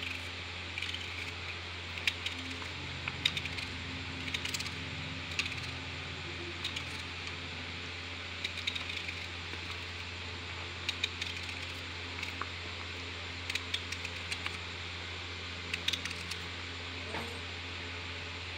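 Knife chopping an onion held in the hand, with irregular small clicks and clinks as the blade and onion pieces hit a steel plate, over a steady low hum.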